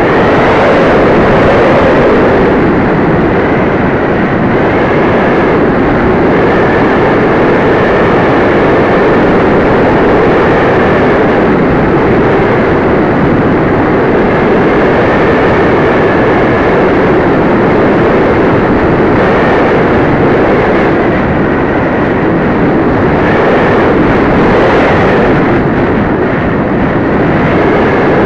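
Model airplane in flight, heard from its wing-mounted camera: a loud steady rush of wind over the microphone mixed with motor and propeller noise, and a faint high whine that comes and goes.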